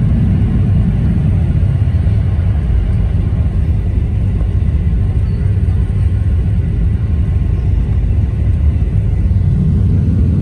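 Jet airliner cabin noise in flight: a loud, steady low rumble of engines and rushing air, heard from inside the cabin at a window seat.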